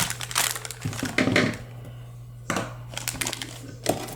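Plastic wrapping crinkling and a cardboard box being handled, in irregular bursts of rustling and sharp clicks with a short lull near the middle.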